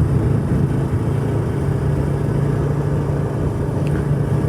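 Motorcycle engine running at a steady speed on the move, a constant low hum.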